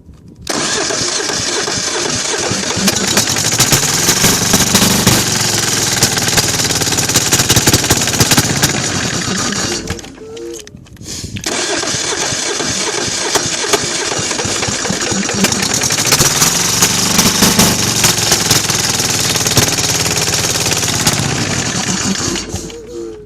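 Kohler KD425-2 two-cylinder diesel engine cranked on the starter in two long attempts of about ten seconds each, a short pause between them, its speed rising and falling as it tries to catch, without settling into a run. The engine is hard starting in the cold, which the owner puts down to fuel too cold to flow through the small fuel filter.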